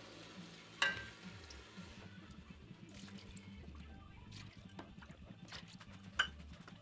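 Milk poured from a plastic gallon jug into a measuring cup and tipped into a stainless steel pot of cooked rice, a faint splashing pour. Two sharp clinks of the cup against the pot, about a second in and again near the end.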